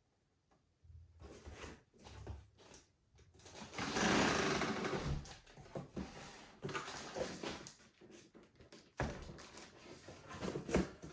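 Cardboard box and packaging rustling and scraping, with small knocks, as vacuum accessories are handled and pulled out; the loudest rustle comes about four seconds in.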